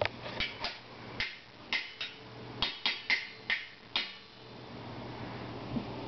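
A wooden drumstick banging on stainless steel pots and pot lids used as a toy drum kit: an irregular, fast run of about a dozen metallic clanks, each ringing briefly, that stops about four seconds in.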